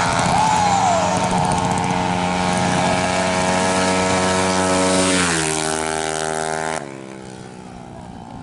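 Drag-racing automatic scooter engine at full throttle, holding one high, steady pitch, then falling in pitch about five seconds in. The sound drops away abruptly near seven seconds.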